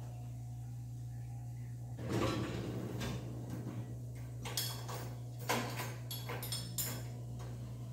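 An LG dishwasher rack rolled on its rails with a rumble about two seconds in, then steel dishes and cups clinking as they are set in the upper rack.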